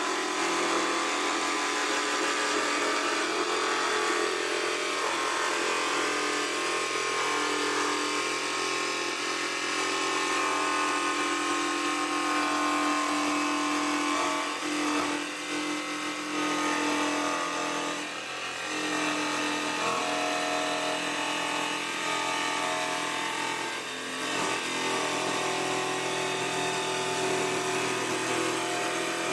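Angle grinder with a cutting blade running steadily as it cuts through the front fender's thin sheet metal, its whine dipping briefly a few times as the blade loads and eases.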